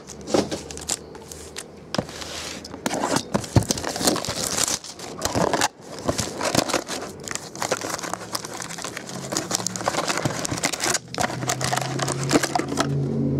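Foil trading-card packs crinkling and rustling as they are lifted out of a cardboard hobby box and handled, with scattered sharp clicks and taps. A low steady hum joins near the end.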